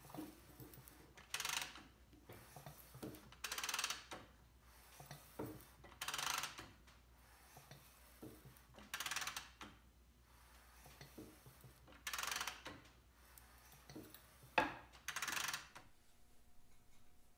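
The 1951 Vincent Rapide's V-twin, barrels refitted without cylinder heads, being turned over slowly by hand, turning smoothly with nothing binding. A short rushing scrape comes about every two and a half to three seconds, with faint mechanical clicks between them and one sharp click near the end.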